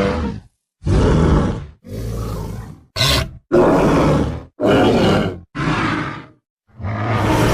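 Pachyrhinosaurus dinosaur sound effects: a string of about eight separate low, pitched creature calls, each lasting up to about a second, with short silent gaps between them. One very short call comes about three seconds in, and the last, longer call begins near the end.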